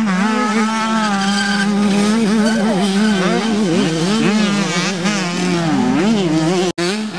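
Motocross dirt bike engines revving hard through corners, the pitch rising and falling with the throttle. The sound drops out abruptly for an instant near the end.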